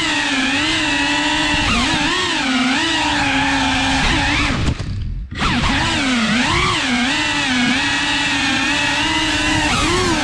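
Cinewhoop FPV drone's motors and ducted propellers whining, the pitch rising and falling with the throttle. About halfway through the throttle is cut for a moment, the sound nearly drops out, then it spools back up.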